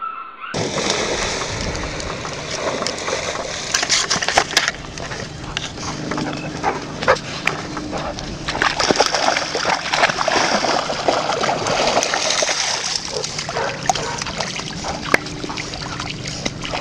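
Labrador retriever puppies splashing and sloshing through shallow water at the edge of a pond. The sound starts abruptly about half a second in and carries on over a steady rushing noise with many small clicks and knocks.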